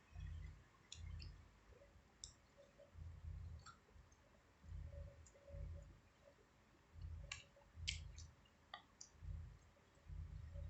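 Slime being squeezed and pressed by hand: soft low squelches about once a second with faint small clicks and pops.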